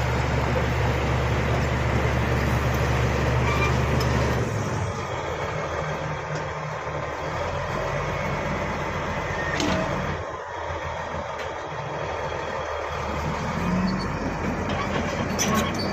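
Shantui crawler bulldozer's diesel engine running hard as it rips hard ground, with track and ground noise. The engine's steady low hum changes and drops about four seconds in, and a few sharp clanks come near the end.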